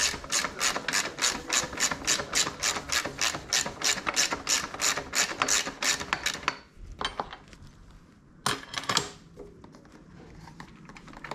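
Hand ratchet worked back and forth in quick strokes, undoing a bolt of a motorcycle side-case mounting bracket, about four or five rasping clicks a second. The ratcheting stops about six and a half seconds in, and a couple of short metallic knocks follow near the end.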